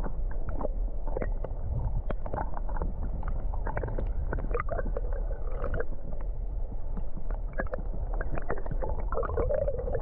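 Flowing creek water heard from below the surface: a muffled low rumble of the current with many small clicks and crackles scattered through it.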